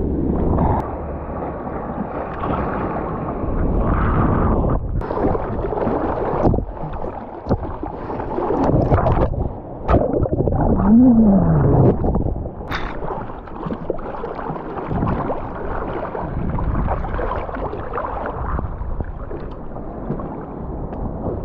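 Sea water sloshing and surging around a surfer in the waves, with wind buffeting the microphone, heard through a GoPro's waterproof housing. The sound is uneven and muffled, with sudden short drop-outs and knocks.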